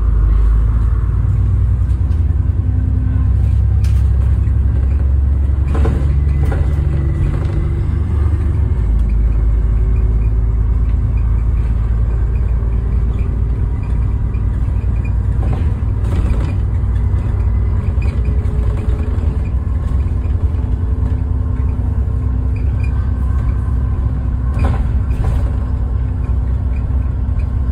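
Stagecoach double-decker bus running along the road, heard from the top deck: a steady, loud low engine rumble whose note shifts about eight seconds in, with a few short knocks and rattles from the body.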